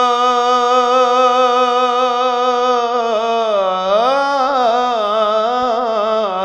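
A male radood's solo voice chanting a Shia lament. He holds one long steady note for about three seconds, then bends it up and down in melismatic ornaments, with no accompaniment.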